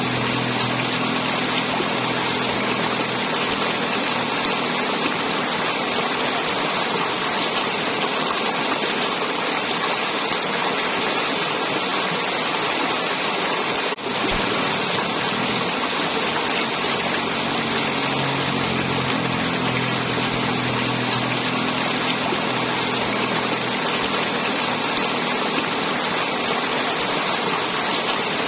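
River water flowing and gurgling steadily, with a momentary dip in level about halfway through.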